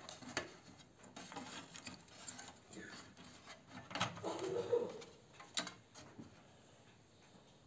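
Light clicks and taps from hands handling the open DVR's sheet-metal case and its ribbon cable, a few separate clicks spread out, with a short low-pitched sound about four seconds in.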